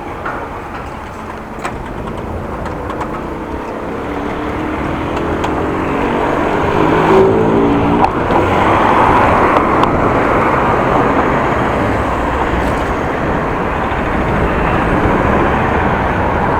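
A motor vehicle's engine accelerating, its pitch rising steadily from about four to eight seconds in and breaking off. After that comes a steady rush of road and wind noise that grows louder.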